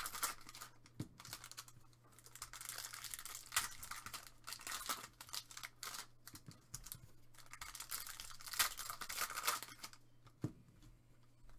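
Foil trading-card pack wrapper being torn and peeled open by hand, crinkling with irregular sharp crackles.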